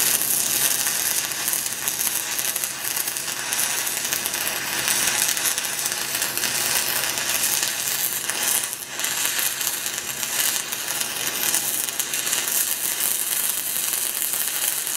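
Stick welding arc of a 6010 electrode crackling steadily as a downhill hot pass is run on steel pipe.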